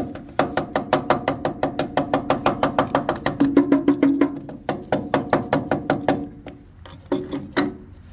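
Rapid metallic clicking, about seven a second, from a metal pick scraping and picking soot out of a diesel EGR valve. Each click rings with a steady tone. The run stops about six seconds in, and a few more clicks follow near the end.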